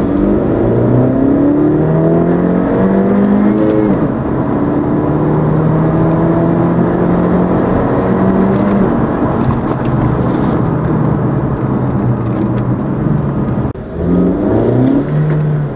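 Honda Civic 1.5-litre turbocharged four-cylinder (L15B7) with an aftermarket cold air intake, heard from inside the cabin with the windows up while accelerating through the gears. The engine note climbs, drops at a gear change about four seconds in, then climbs again more slowly. Near the end the throttle is lifted and the revs hang briefly instead of falling away.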